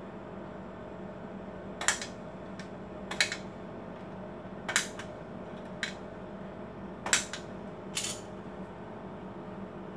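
Sharp plastic clicks, about six in all and spaced a second or so apart, as the blue ink-tank caps on an Epson L4160 printer's ink tank unit are pressed and snapped into place. A steady low hum runs underneath.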